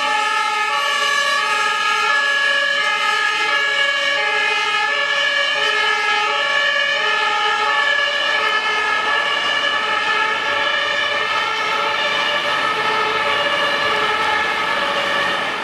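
German two-tone fire engine horn (Martinshorn) sounding, its high and low notes alternating steadily, with a steady high tone running underneath.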